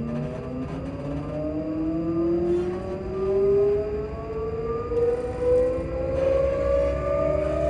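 Class 334 electric multiple unit's traction motors whining, several tones climbing steadily in pitch together as the train accelerates, over the low rumble of the train running on the track.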